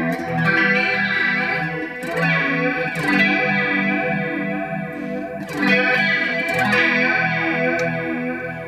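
Electric guitar strumming chords through an Electro-Harmonix Deluxe Electric Mistress flanger with its LFO sweep running, giving a slow whooshing comb-filter sweep over each chord. The pedal is working again on a replacement for its obsolete Reticon SAD1024A bucket-brigade delay chip.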